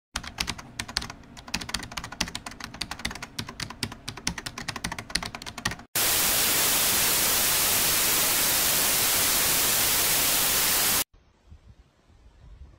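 Rapid, dense clicking like fast typing for about six seconds, then a sudden cut to loud, even static hiss that runs for about five seconds and stops abruptly.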